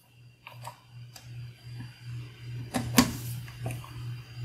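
Scattered small clicks and taps as a hand nut driver snugs down the ignition armature mounting bolts on a Tecumseh small engine, with a sharper knock about three seconds in.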